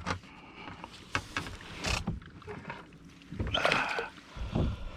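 Scattered knocks, bumps and rubbing of handling on a fishing kayak, with a louder flurry of noise a little after the middle and a dull thump near the end.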